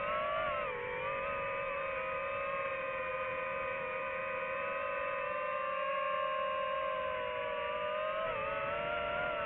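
Quadcopter drone motors and propellers whining steadily at a high pitch. The pitch dips briefly about half a second in and again near the end, as the throttle changes.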